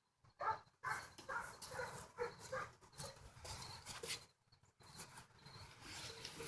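A series of faint short pitched animal calls, several in a row about a second apart.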